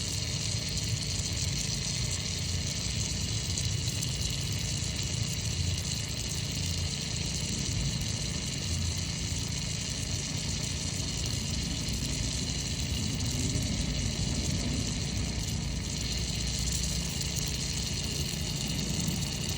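WD-40 aerosol can spraying continuously into a lock, a steady hiss, over a steady low rumble.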